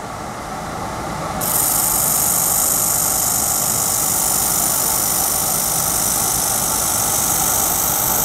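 1000 W handheld fiber laser welder working a steel sheet with filler wire: over a steady low hum, a loud steady hiss sets in about a second and a half in as the weld starts and throws sparks.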